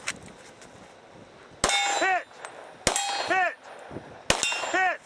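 Three pistol shots from a compensated Glock 23C in .40 S&W, a little over a second apart, each followed by the ringing clang of a steel target being hit.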